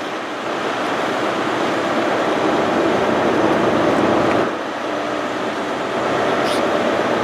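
Class 165 Turbo diesel multiple units moving slowly through the station throat: a steady mix of diesel engines running and wheels on rail, swelling to its loudest about four seconds in.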